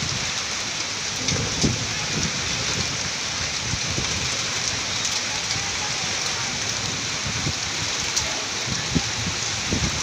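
Heavy rain pouring steadily in a windstorm, with gusts of wind rumbling on the microphone and a few sharp, close drop impacts.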